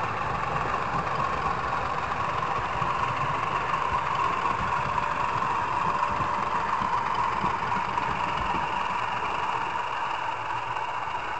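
Model railway train running along the track, heard through a camera mounted on the train: a steady motor whir over a low rumble from the wheels on the rails.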